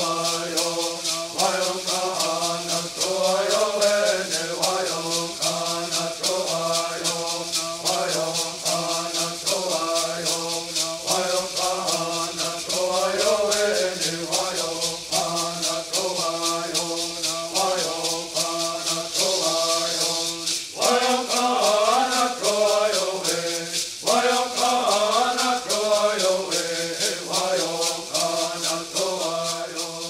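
Bird singing: voices chanting a bird song over gourd rattles shaken in a steady beat. The singing breaks off sharply and starts again twice in the later part.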